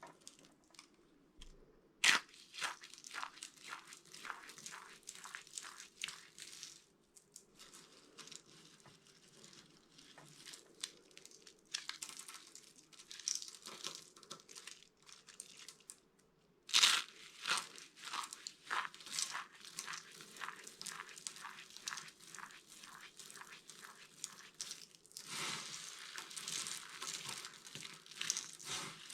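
Dry bar soap being crushed: dense runs of sharp, crisp crunching crackles, with brief pauses between handfuls and the loudest cracks about two seconds in and again about seventeen seconds in.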